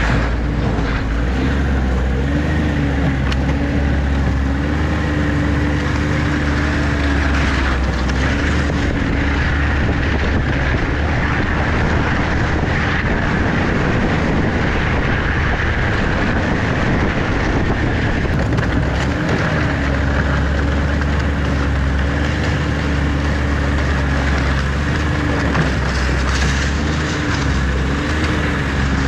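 A motor vehicle under way: its engine runs steadily with a low drone, and its note wavers a little with speed. The drone eases through the middle stretch and picks up again about twenty seconds in.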